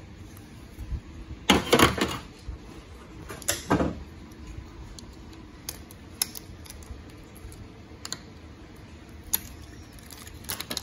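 4L80E transmission filter being worked loose and pulled off the valve body: two scraping, rattling bursts within the first four seconds. Then scattered light clicks of a hand tool on the valve body.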